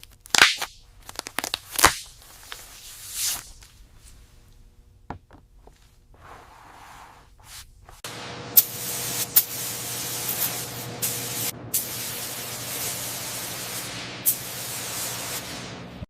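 Spray-painting hiss: a few short spray bursts, then a steady spray from about halfway in, with scattered clicks.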